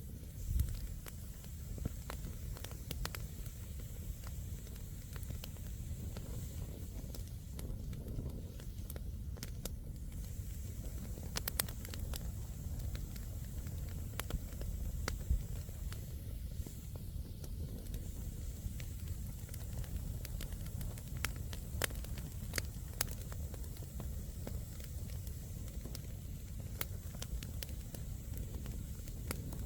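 Wood campfire burning: scattered sharp crackles and pops from the burning firewood over a steady low rumble.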